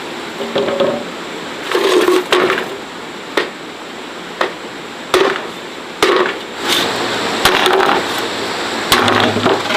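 Sharp, irregular knocks and clatter, roughly one every second or two.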